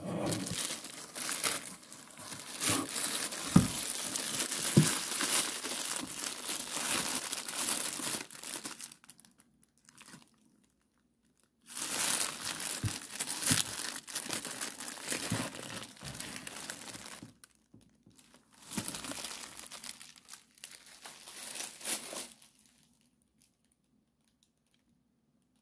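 Crinkling, rustling plastic wrapping on firework packs as they are handled and lifted out of a cardboard box. It comes in three stretches of handling with short pauses between.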